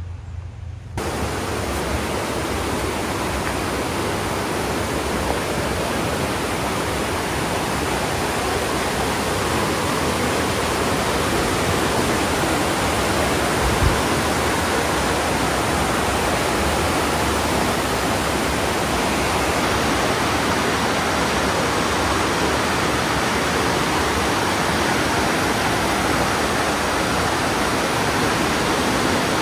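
Steady rushing of falling water, an even roar with no rhythm, that cuts in abruptly about a second in. One short low thump about halfway through.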